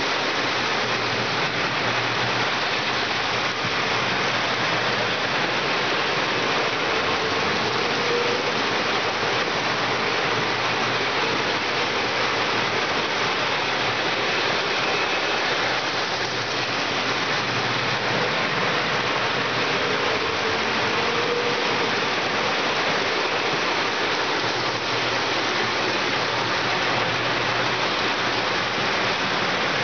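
Lionel and Williams O-gauge toy trains running around the layout: a steady rushing roll of metal wheels on metal track, with a low motor hum and a higher whine that swell and fade several times as the trains pass.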